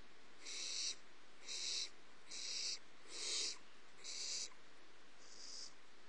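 Barn owl owlets in a nest box giving rasping, hissing calls, the snore-like begging call of barn owl nestlings. Six short hisses come at about one a second, the fourth the loudest and the last one fainter.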